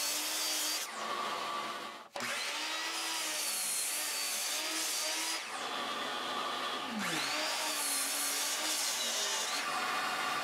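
Miter saw running and crosscutting rough cherry boards, its motor whining steadily. The sound breaks off briefly about two seconds in, and around six to seven seconds the blade winds down with a falling pitch before the saw runs again.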